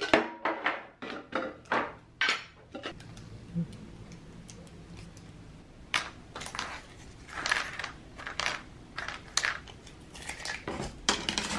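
A metal tin being handled and set down with a few knocks, then, after a quieter stretch, a run of light clinks and knocks starting about halfway through as small stainless steel ring molds are set out one by one on a table.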